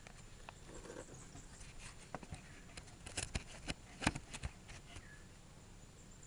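Light clicks and taps of a mower blade, bolt and plastic washer being handled and fitted into the blade disc, scattered and irregular, with a cluster between about two and four and a half seconds in and the sharpest tap just after four seconds.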